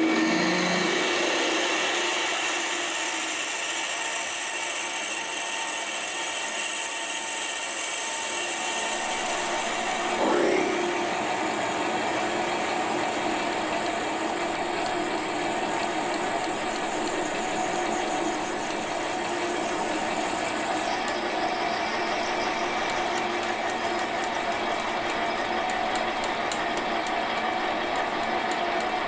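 Metal lathe running while a twist drill bores the centre of a steel flywheel blank. About ten seconds in the sound shifts as a reamer takes over to finish the hole to 3/8 inch, with a high whine for several seconds after.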